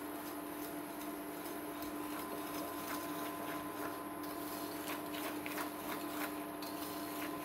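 Wire whisk beating eggs, sugar and chocolate powder into a thick batter in a ceramic bowl: soft scraping with light clicks of the wires against the bowl, more frequent from about three seconds in. A steady hum sits underneath.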